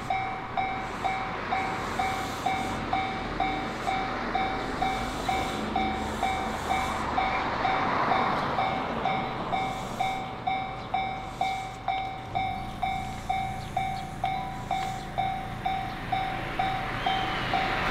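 Japanese railway level-crossing warning bell dinging steadily, about two strikes a second, while the crossing is closed. Underneath it runs the low steady hum of an electric train standing at the station platform.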